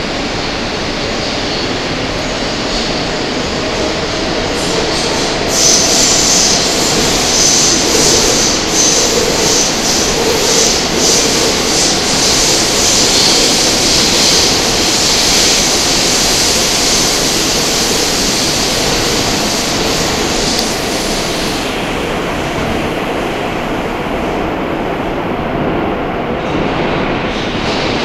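New York City R160 subway car running at speed through a tunnel, heard from inside the car: a steady rumble of wheels on rail. A loud, high rushing hiss from the wheels and rails comes in about six seconds in and falls away about twenty-two seconds in.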